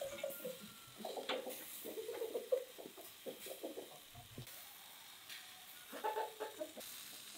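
Domestic hens clucking in short, irregular runs, over a faint crackle of meat grilling on charcoal.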